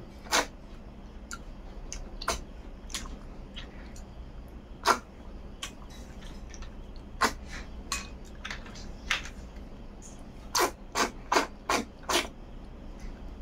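Close-up eating sounds: short wet mouth smacks and clicks while chewing handfuls of rice and snail curry eaten by hand, with five quick smacks in a row about ten seconds in.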